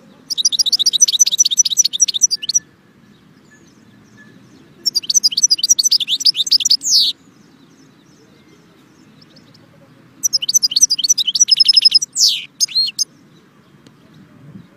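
European goldfinch singing: three bursts of rapid, high twittering trills, each about two to three seconds long, with pauses of a couple of seconds between them.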